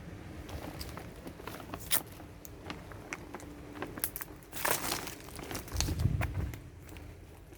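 Plastic being handled: irregular crinkling and crackling with sharp clicks, and a longer rustle about halfway through.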